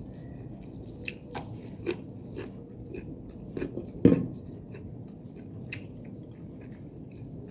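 Close-up eating sounds: mouth clicks and smacks of chewing, scattered and irregular, with one louder thud about four seconds in.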